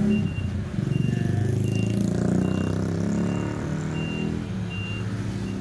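Truck's reversing alarm beeping about every three-quarters of a second, a steady high tone, over the truck's diesel engine running steadily.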